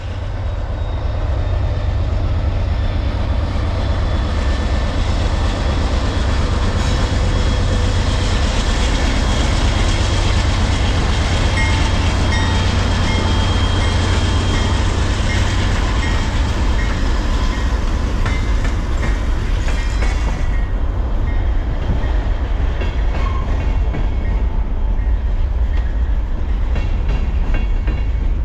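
Freight train in motion, a steady loud rumble and rattle with faint metallic whines; the hissing top of the noise drops away about twenty seconds in.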